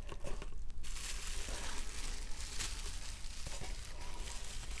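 Plastic bubble wrap crinkling and crackling as it is handled and pulled out of a cardboard box by hand.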